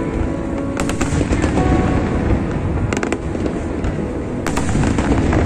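Aerial firework shells bursting in a dense continuous rumble, with sharper cracks about a second in, around three seconds and a pair around four and a half seconds.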